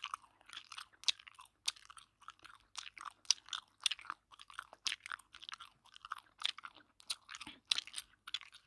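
Hair being handled and smoothed close to the microphone: faint, irregular crackling and rustling, several small clicks a second.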